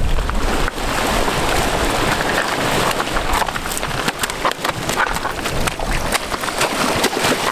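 Ocean surf washing over jetty rocks: a steady, loud hiss of moving water with many small crackles. A low rumble of wind on the microphone fades out in the first second.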